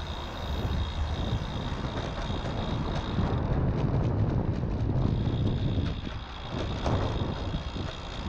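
Wind rushing over the microphone of a camera on a moving road bike, with the tyres humming on the paved path. A few short crackles come in the middle.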